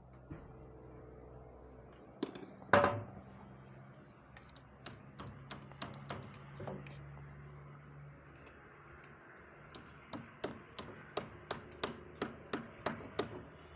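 Sharp knocks and taps over a faint low hum: one loud knock about three seconds in, a few scattered taps, then a steady run of about three taps a second from about ten seconds in.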